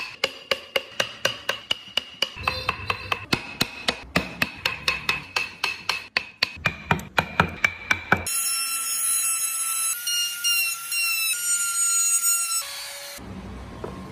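Steel carving chisel driven into wood by quick, even strikes, about four a second, each a sharp crack of the blade biting and chips splitting off. After about eight seconds the striking stops and a steadier scraping sound with a faint whine takes over.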